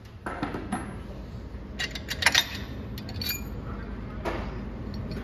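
Scattered metallic clinks and knocks, loudest in a cluster about two seconds in, as the bolts and No. 3 main bearing cap are taken off a Cummins 4BT engine block.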